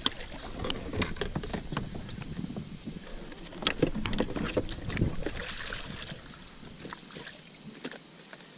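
Water splashing as a big bass thrashes at the surface beside a plastic kayak while it is landed, with scattered knocks and clunks against the kayaks. It quietens after about six seconds.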